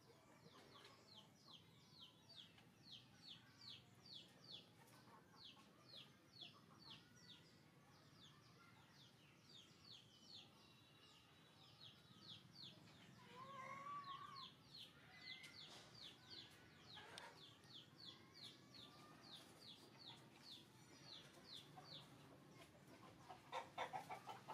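Faint background birdsong: a long run of short, high chirps, about three or four a second, with a lower call about halfway through. A few soft clicks come near the end.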